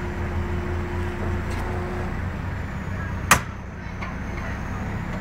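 Engine running steadily at idle, with one sharp, loud knock a little over three seconds in.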